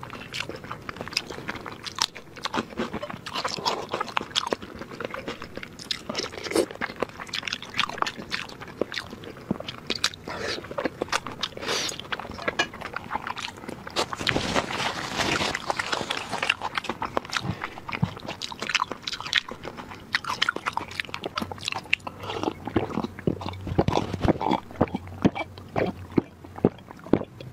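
Close-up eating sounds: a person chewing food soaked in chili oil, with many short wet mouth clicks and smacks. Near the end, gulps from a glass of drink.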